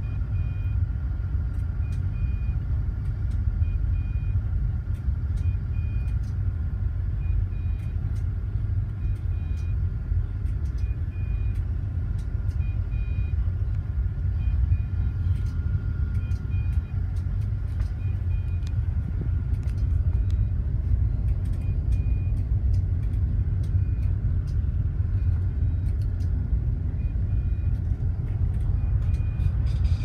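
Steady low rumble aboard a container ship underway, with a faint high electronic beep repeating in short pulses.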